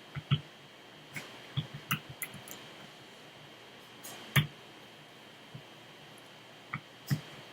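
Lock pick and tension wrench working in a Master Lock Pro Series padlock: irregular small metallic clicks and taps as pins are probed and set, with the sharpest click about four seconds in.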